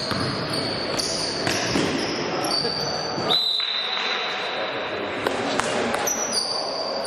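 Basketball game sounds in a gym: the ball bouncing on the court with sharp knocks, high squeaks, and players' voices in the hall.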